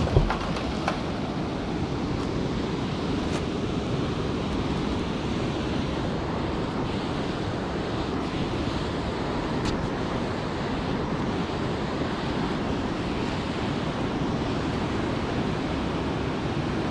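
Steady rush of river water pouring over a dam spillway, with wind on the microphone. A brief knock sounds right at the start.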